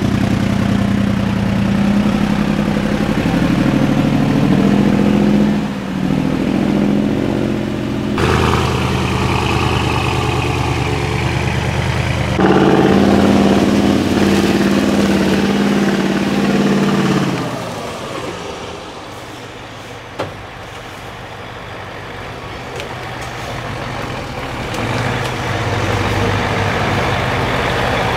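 Mercedes-Benz off-road trial truck's diesel engine working under load on steep dirt, its note rising and falling with the throttle. About two thirds of the way through it drops to a quieter low running with a single sharp knock, then builds again near the end.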